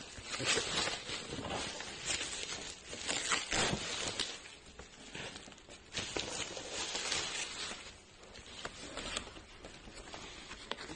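Irregular rustling and scraping, like things being handled, in uneven strokes with short pauses; no steady motor sound.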